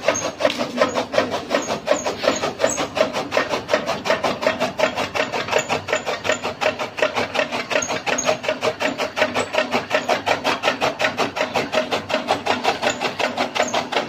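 Flywheel chaff cutter chopping sugarcane and green fodder. It makes a fast, steady clatter of blade strokes, many a second, keeping an even rhythm throughout.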